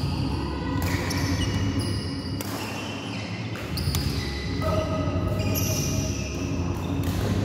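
Badminton doubles rally: rackets hitting the shuttlecock in sharp strikes every second or so, with many short, high squeaks of players' shoes on the synthetic court mat and footfalls, echoing in a large hall.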